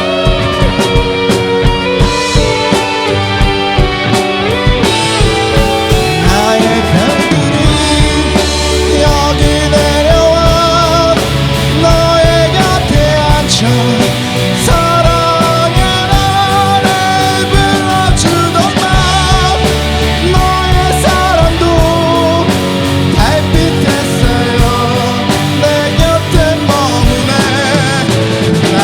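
Rock band playing live in a rehearsal room: drum kit, bass and electric guitar, with a wavering lead guitar line, recorded on a phone.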